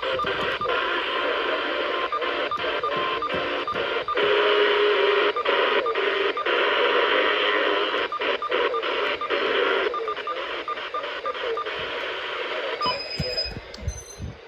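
Radio static: a steady hiss from a radio receiver, broken by frequent crackles and brief dropouts. It fades near the end.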